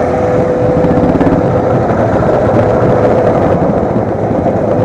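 Several Royal Enfield single-cylinder motorcycles running together as the group moves off at low speed: a dense, steady rumble of many engines, with a thin held tone over roughly the first second and a half.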